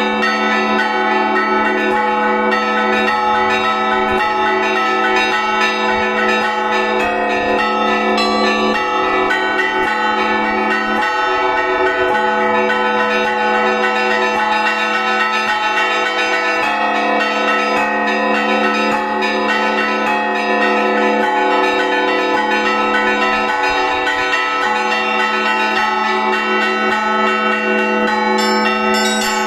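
Russian church bells rung together in a continuous zvon: many bells of different pitches struck in quick overlapping succession, ringing on without pause.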